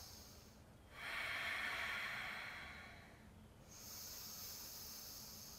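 Slow, deep breathing in and out through the nose, each breath a soft hiss of about two seconds. One long breath begins about a second in and another just past the middle, with short pauses between them.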